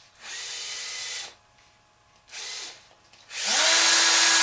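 Small electric power-tool motor, like a handheld drill, run in three bursts: a medium one, a brief one about two seconds in, and a louder, longer one near the end that spins up to a steady whine.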